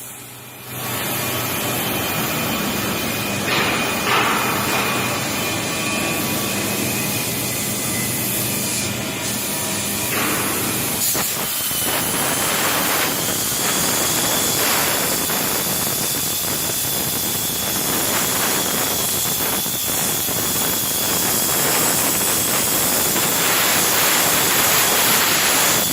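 Plasma cutting torch on a CNC cutting machine, cutting with a steady loud hiss. The sound drops briefly at the start and resumes about half a second in, and a faint high whine joins it midway.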